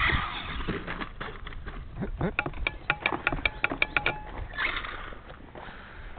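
Radio-controlled monster truck running on sand: bursts of motor and tyre noise, with a quick run of sharp clicks, about six a second, in the middle.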